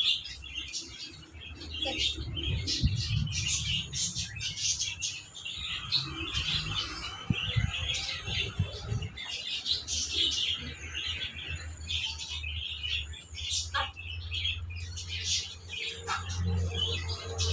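Small birds chirping, many short high chirps in quick succession, over a low steady rumble that grows stronger near the end.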